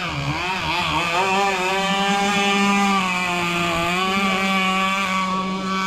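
Gasoline RC powerboat's two-stroke chainsaw-type engine revving unevenly at first, then held at a steady high pitch under throttle, easing off slightly about four seconds in.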